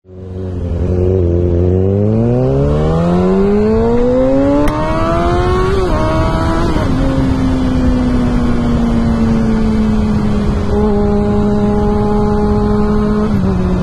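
Kawasaki ZX6R sport bike's inline-four engine accelerating hard. Its pitch climbs steadily for about four seconds, drops with a gear change, then holds a steady, slowly falling pitch at cruise, with a small drop again near the end.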